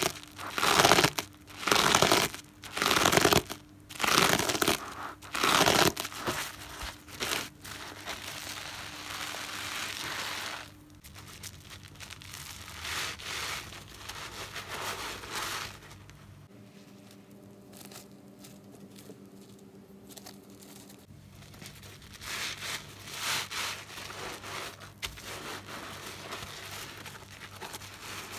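Soap-soaked car sponge squeezed and crushed in the hands, foam crackling and squelching. Squeezes come about once a second at first, go softer through the middle, then pick up again near the end.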